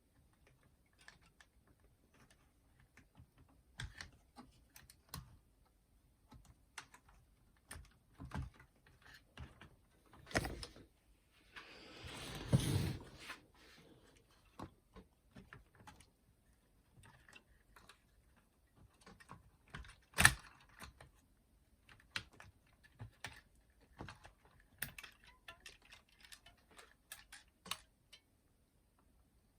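Scattered small clicks and taps of parts being handled during bench work on a boombox, with a brief rustling scrape midway and one sharper click a little later.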